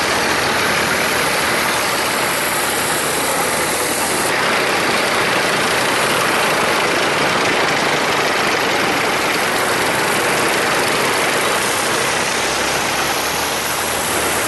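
A column of tracked military vehicles, Buk surface-to-air missile launchers among them, driving past close by: a steady, loud mix of engine noise and tracks on the road. The sound shifts abruptly about four seconds in.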